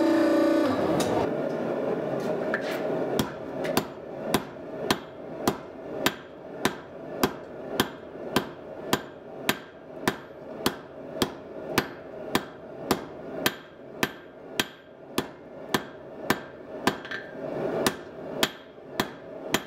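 Hand hammer striking a glowing ball-bearing damascus steel billet on an anvil to flatten it. The sharp blows come in a steady rhythm of a little under two a second, starting a couple of seconds in, over a steady low background noise.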